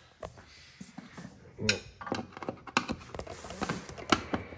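Scattered sharp clicks and light knocks, about eight over four and a half seconds, as hands and a Phillips screwdriver handle the mobility scooter's metal seat frame.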